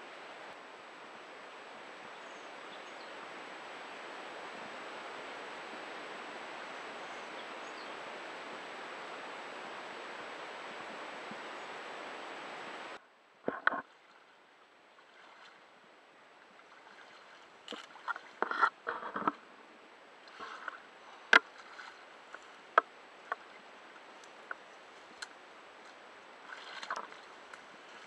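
Kayak on the water: a steady rushing hiss of water and wind for about the first half, which stops suddenly. Then a quieter stretch with scattered sharp knocks and splashes of the paddle against the kayak and the water.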